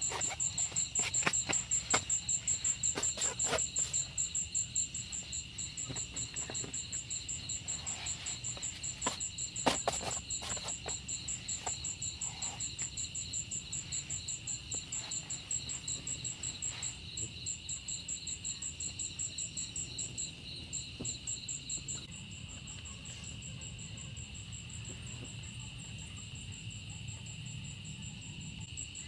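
Night-time insect chorus: crickets chirping in a steady, rapid pulsing rhythm over a continuous high drone, with one pulsing voice dropping out about two-thirds of the way through. A scatter of brief clicks and rustles comes in the first few seconds and again around ten seconds in.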